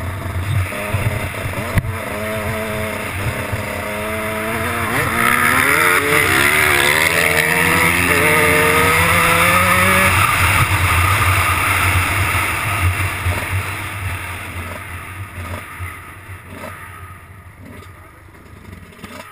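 Kawasaki dirt bike engine revving up and down through the gears at speed, with heavy wind noise on the helmet-mounted microphone. From about two-thirds of the way through, the engine backs off and the sound fades as the bike slows to a stop.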